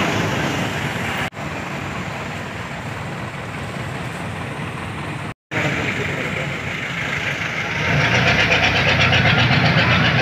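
Passenger jeepney engine and cabin noise heard from inside while riding slowly. The sound cuts out briefly twice, and near the end it grows louder with a fast, even rattle.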